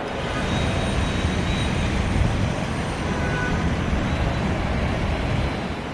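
Nova Bus transit bus driving past: a steady low engine rumble with a faint high whine, swelling and easing slightly near the end.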